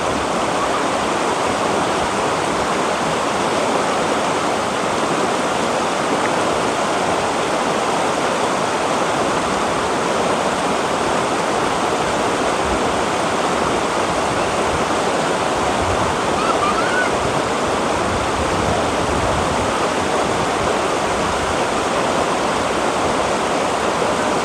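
Shallow rocky river rushing over boulders in small rapids: a steady wash of water.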